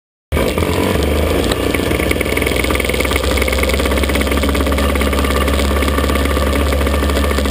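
Maxter MXO 125 cc two-stroke engine of a KZ shifter kart running steadily, without revving, heard close up from a camera mounted on the kart. The sound cuts in suddenly just after the start.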